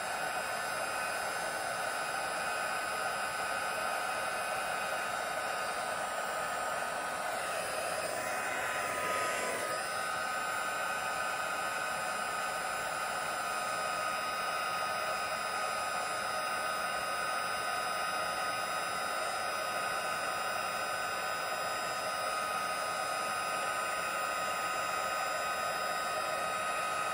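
Handheld heat tool running steadily, its fan blowing hot air with a steady whine as it shrinks heat-shrink tubing onto the end of a fabric drawstring. The whine wavers and dips briefly about eight seconds in.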